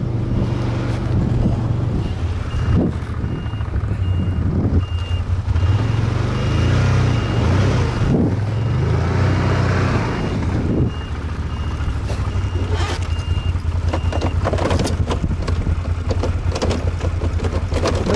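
Snowmobile engine running and changing pitch as it is worked, with its reverse warning beeper giving short high beeps about twice a second while the sled backs up. The beeping stops about 14 seconds in.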